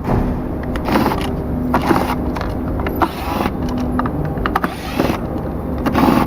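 Screwdriver backing screws out of a self-balancing scooter's plastic cover: repeated clicks and scrapes of metal and plastic over a steady low background hum.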